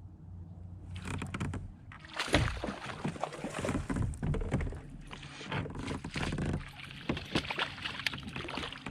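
Water splashing and knocking at the side of a kayak as a freshly hooked bass is landed, with irregular splashes and sharp knocks for several seconds that ease off near the end.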